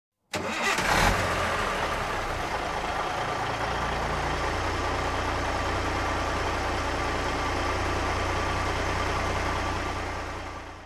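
Heavy vehicle engine, of the kind used in a bus: it surges louder about a second in, then settles into a steady low idle that fades out near the end.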